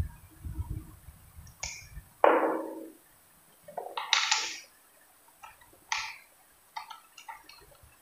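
Steel air-hose quick coupler (SP20) being worked by hand and pushed onto a nail gun's PM20 plug: a few separate short metallic scrapes and clicks, with small ticks near the end.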